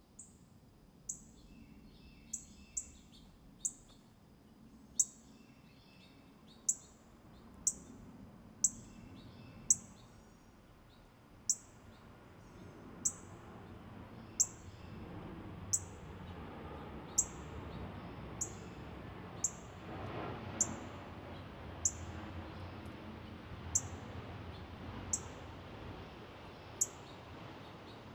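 A small songbird giving short, very high chirps, each dropping sharply in pitch, repeated about once a second. Fainter calls from other birds come in during the first few seconds, over a low background rumble that grows louder.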